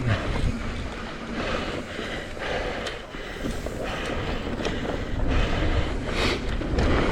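Mountain bike riding down a dirt trail: tyre noise and rumble with frequent short knocks and rattles from the bike over rough ground, and wind buffeting the microphone.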